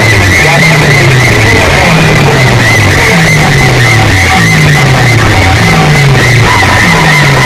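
Music blaring at very high volume from a stack of horn loudspeakers on a sound-system rig. A deep falling bass slide repeats about once a second under a warbling high tone.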